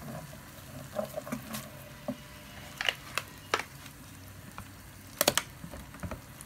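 Wooden spoon stirring cream in a hot pan with butter and garlic: scattered light knocks and scrapes of the spoon against the pan over a low sizzle. A sharper double clatter a little past five seconds in, as raw fish pieces go into the pan.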